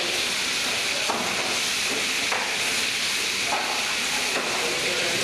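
Water running from hoses and taps onto stainless-steel fish-filleting tables, a steady hiss, with a few faint knocks from handling at the tables.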